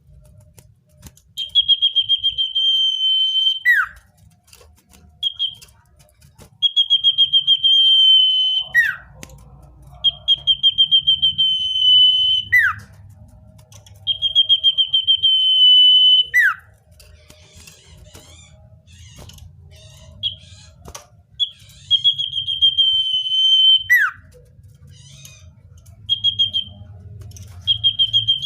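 Common iora (cipoh/sirtu) singing: a phrase repeated about six times, each a long, fast-trilled whistle held at one pitch for about two seconds and ending in a quick falling note, with short single notes in between.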